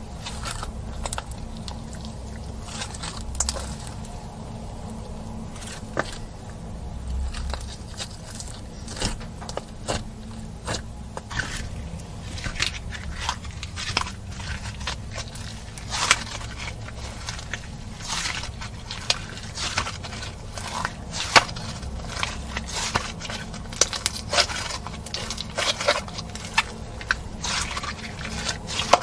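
Slime being worked by hand with makeup mixed in: scraping and squishing with many sharp clicks and crackles, which come much thicker from about twelve seconds in, over a steady low hum.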